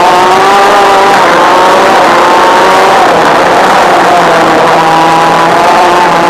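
Honda two-stroke shifter kart engine at racing speed, heard from an onboard camera. It revs up, falls back through a corner about a second in, then pulls up again and holds high revs near the end.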